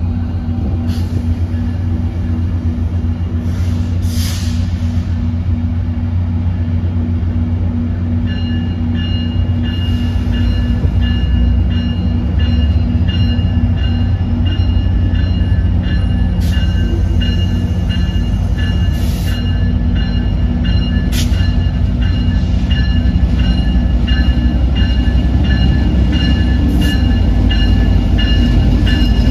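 Diesel passenger locomotive running at the platform, its engine a deep steady drone that grows slowly louder. About eight seconds in, high steady ringing tones join it.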